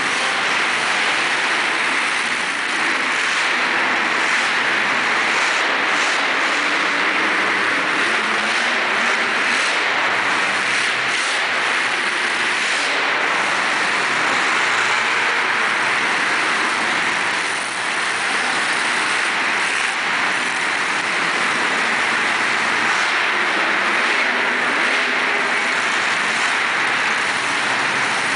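Monster truck engines running loud and steady, heard from the stands as one continuous din filling the indoor arena.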